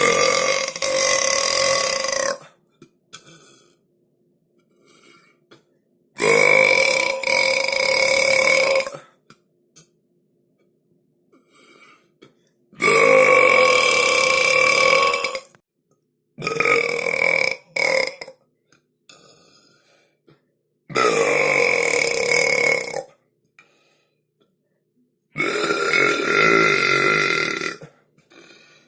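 A person belching loudly, seven times with pauses of a few seconds: five long, drawn-out burps of two to three seconds each at a steady pitch, and a pair of shorter burps close together midway through.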